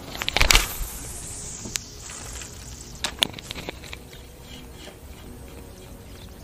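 Fishing rod cast with a baitcasting reel: a sharp swish and rattle about half a second in, the line hissing off the reel for a second or two, then a few single sharp clicks from the reel.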